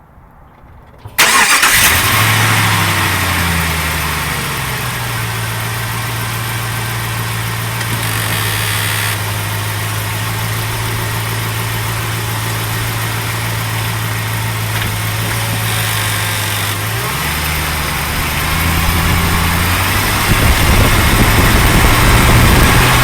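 2004 Jeep Grand Cherokee WJ engine starting about a second in, then idling steadily. Near the end the engine note changes pitch and the noise grows louder.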